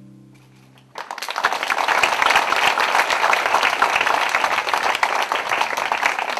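Audience applauding. The clapping breaks out suddenly about a second in, as the last bowed chord of a string quartet dies away.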